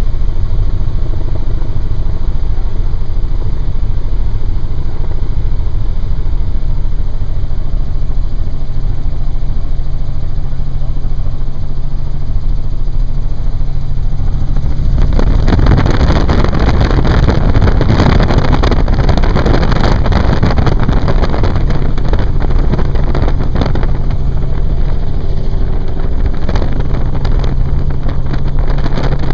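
Helicopter engine and rotor droning steadily, heard from inside the cabin in flight. About halfway through, a loud rushing noise joins in and eases off over the last several seconds.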